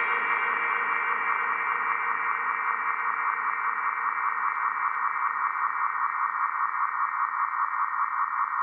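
Electronic dance track's outro: a synth loop pulsing in a quick, even rhythm, heavily filtered so it sounds thin and muffled, like through a small radio, with no bass or kick drum.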